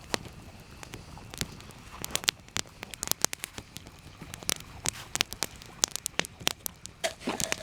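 Campfire crackling: irregular sharp pops and snaps from burning wood over a soft steady hiss.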